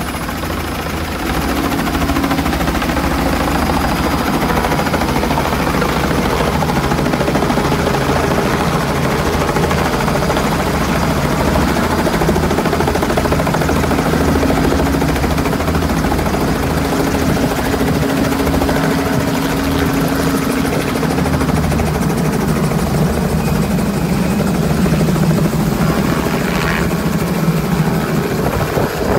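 Helicopter running steadily: engine and rotor noise with the fast, even chop of the rotor blades.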